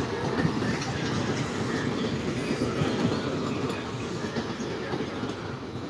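A train passing close by, its wheels rumbling and clicking steadily over the rails, easing off a little near the end.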